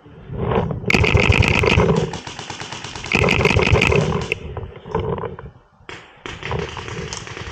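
Paintball marker firing two rapid bursts of shots, each about a second long, the first about a second in and the second about three seconds in.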